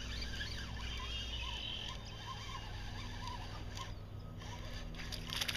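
Fishing reel being cranked as a hooked bass is reeled in: a steady low whir, with a few light clicks near the end.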